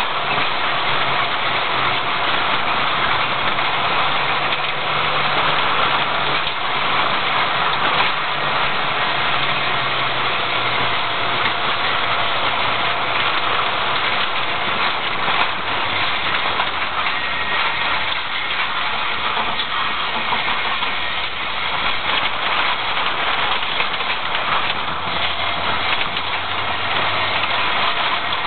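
A car's engine running at low revs, with tyre and road noise, heard from inside the cabin while driving slowly along a rough dirt track. The engine note drops a little about halfway through.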